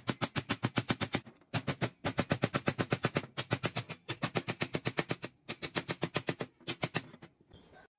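Chipping hammer rapidly tapping slag off fresh stick welds on steel nuts: quick metal-on-metal strikes, about eight a second, in runs of about a second with short breaks. The strikes stop shortly before the end.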